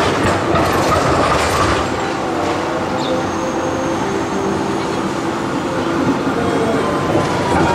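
Z3-class tram passing close by on street track, its steel wheels rumbling and clattering over the rails, with a steady whine from the running gear.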